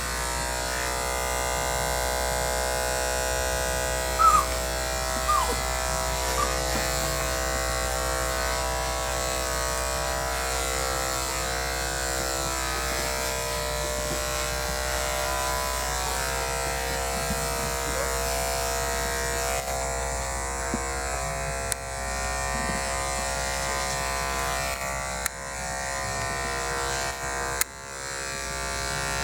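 Electric dog-grooming clippers running with a steady buzzing hum, dipping briefly a few times near the end. A short high squeak about four seconds in, with two fainter ones soon after.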